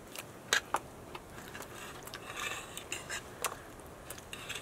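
Metal forks clicking and scraping against a metal serving tray as baked fish is picked apart: a scatter of sharp clicks over soft rustling.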